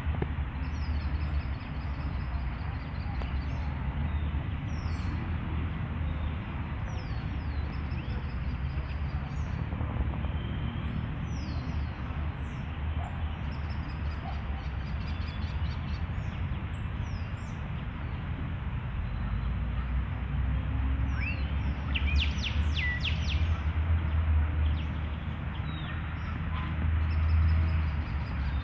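Several birds chirping and trilling in short, repeated calls, with a louder flurry of calls about two-thirds of the way through. A steady low rumble and hiss runs underneath.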